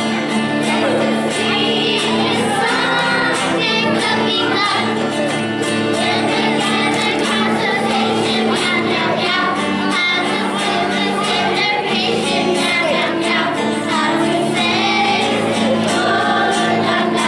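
Children's choir singing a story song, accompanied by a strummed acoustic guitar.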